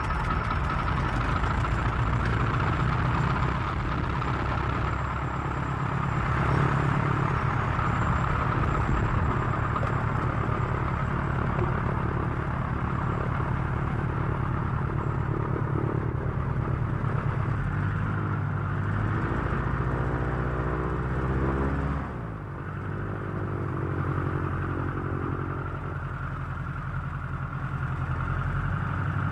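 Old propeller airplane engine running with a steady drone. Past the middle its pitch sways up and down, then it eases off and runs quieter, building again near the end.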